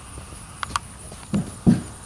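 Hoofbeats of a Hanoverian–Appaloosa cross filly moving over dry, packed pasture ground: two heavy thuds close together about a second and a half in, with a couple of lighter clicks just before.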